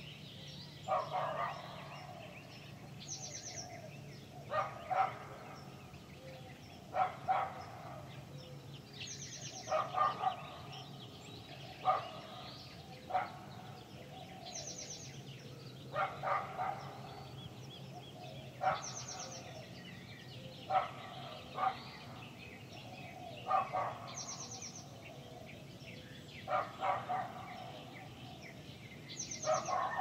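Dogs barking in a canyon, short barks often in pairs every second or two. A bird repeats a short high trill every few seconds. A steady low hum runs underneath.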